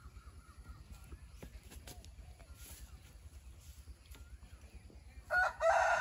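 A rooster crows loudly about five seconds in, in two quick parts, over faint scattered chirps.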